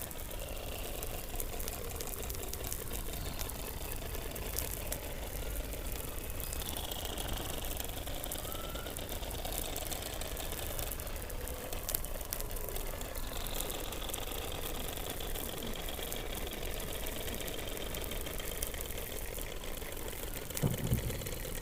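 Underwater sound from a hydrophone beneath the Antarctic ice: a dense background chorus of seal calls with long high gliding whistles, a short rising chirp, and fine clicking. A brief low thump comes near the end.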